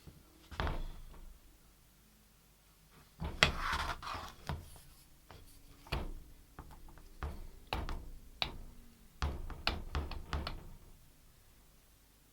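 Irregular knocks and clinks of hard objects being handled and set down, with a short scrape about three and a half seconds in and a quicker run of knocks between nine and eleven seconds.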